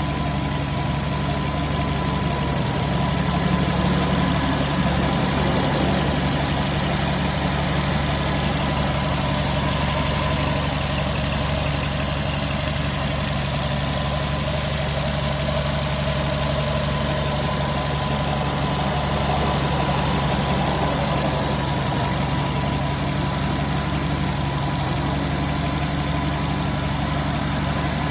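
Subaru Impreza STI (GRB) turbocharged EJ20 flat-four idling steadily through an aftermarket muffler.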